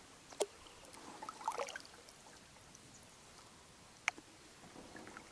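Small water sounds, drips and trickles, around a kayak drifting on a calm river, with two sharp knocks, one about half a second in and one about four seconds in, and a brief cluster of splashes and crackles between them.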